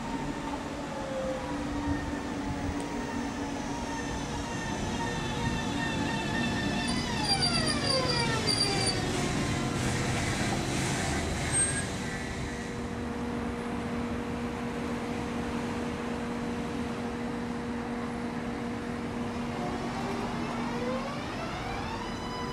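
Vy Class 72 electric multiple unit pulling out past the platform, its traction motors whining in stacked gliding tones over a steady hum and the rumble of the wheels. The whine sweeps down in pitch about a third of the way in and climbs again near the end as the train gathers speed.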